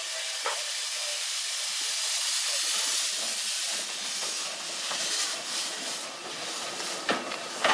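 Steady steam hiss from a 15-inch gauge 0-4-2 side tank steam locomotive, built in 1996 by the Exmoor Steam Railway, standing in steam on a turntable. The hiss swells over the first few seconds and then holds steady, with a couple of sharp knocks near the end.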